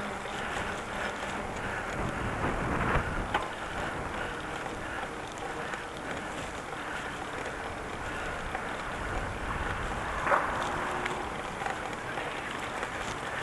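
Steady noise of riding a bicycle: wind on the microphone and tyres rolling over pavement, with a couple of brief louder bumps.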